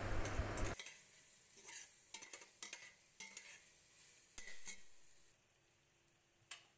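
Perforated steel spatula stirring and scraping beef masala in a steel pot, giving scattered light scrapes and clinks. A steady hiss cuts off under a second in, and the stirring fades out about five seconds in.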